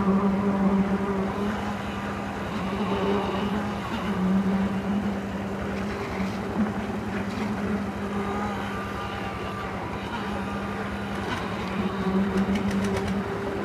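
Construction machinery running with a steady drone at one pitch, with a few sharp clicks near the end.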